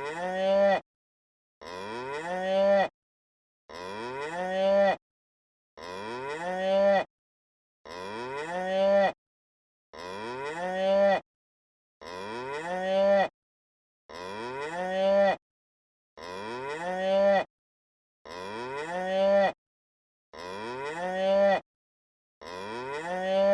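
The same cow moo repeated about a dozen times, one roughly every two seconds with dead silence between. Each moo rises in pitch and grows louder before cutting off sharply.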